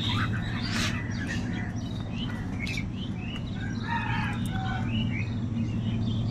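Many crows calling together, short overlapping caws throughout, with a longer call about four seconds in. A steady low hum runs underneath.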